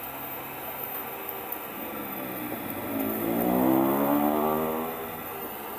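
Steady hiss of an oxy-acetylene torch flame. About two and a half seconds in, a passing vehicle's engine swells up, peaks, and fades away over about two and a half seconds.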